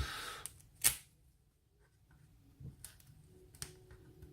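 Small parts of a gutted pin-tumbler lock and picking tools being handled: a brief rustle, one sharp click just under a second in, then a few faint scattered clicks and taps.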